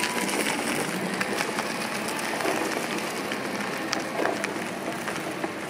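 Knobby tyre rolling over gritty asphalt: a steady crunching noise with many small clicks and rattles scattered through it.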